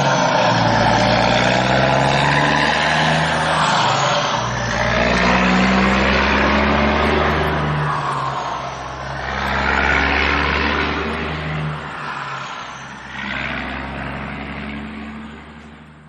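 Vehicle engine running loud, swelling and easing in waves, then fading away near the end.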